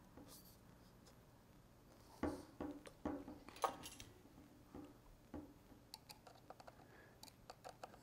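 Faint clicks and light knocks of a drone landing-gear spring mount being handled and slid along its leg, starting about two seconds in, with a run of small quick ticks near the end.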